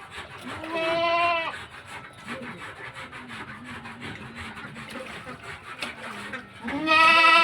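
A farm animal calls twice, one about a second in and another near the end. Each is a long, slightly wavering bleat-like call lasting about a second, over a quieter background.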